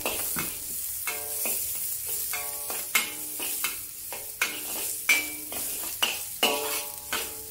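Chopped ginger, garlic, dried chili and spring onion sizzling in a little oil in a wok, with a metal wok spatula repeatedly scraping and tapping against the wok as they are stirred.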